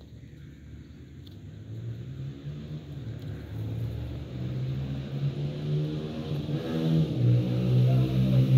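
A motor vehicle's engine running, growing steadily louder as it comes closer, its pitch dropping a little about seven seconds in.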